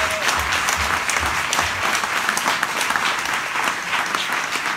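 Audience applauding, a dense spread of many hands clapping.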